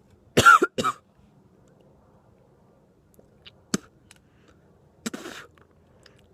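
A person coughing and gagging while eating a bacon-and-cheese dog treat, reacting to the taste. There is a loud double cough about half a second in, a sharp click near the middle, and a shorter breathy cough about five seconds in.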